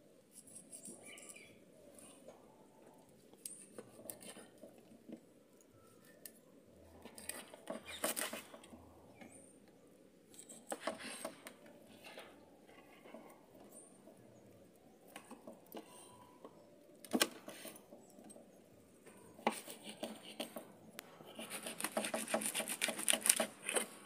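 A knife scraping along the side of a cavalli (jack fish) on a wooden chopping board, cleaning the fish. It comes in short spells of quick strokes, with the longest run near the end.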